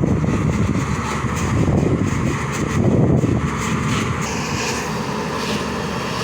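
Hyundai R210 hydraulic excavator's diesel engine running, swelling louder around two and three seconds in and settling a little after about four seconds.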